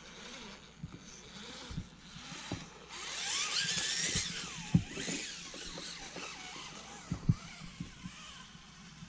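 Electric motor and drivetrain of an Axial Capra RC rock crawler whining in surges as the throttle is worked, loudest with a gliding pitch about three to four and a half seconds in. A few sharp low thumps come through near the middle and later on.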